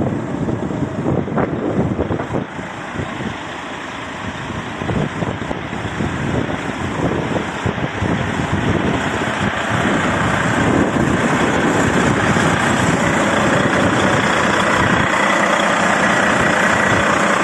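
Volvo dump truck's diesel engine idling steadily, louder from about ten seconds in.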